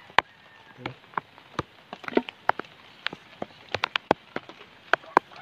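A bare hand digging and breaking up clumps of damp soil, giving a string of irregular crackles and sharp clicks as clods are pulled apart and scraped aside.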